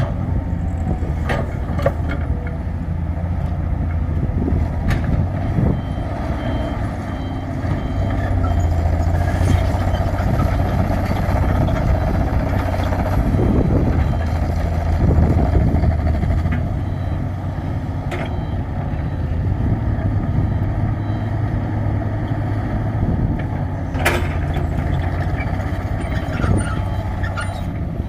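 Diesel engine of a hydraulic excavator running steadily under load while digging, with an electronic backup alarm beeping in an even rhythm for the first few seconds and again near the end. A few sharp metallic knocks, typical of the bucket striking, sound now and then.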